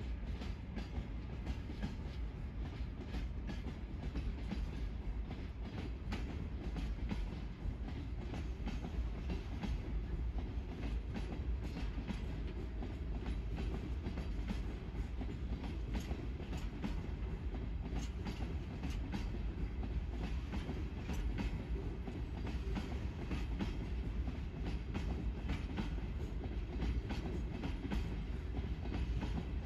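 Long freight train of open-top gondola wagons rolling past, a steady low rumble of wheels on rails with many short clicks and knocks.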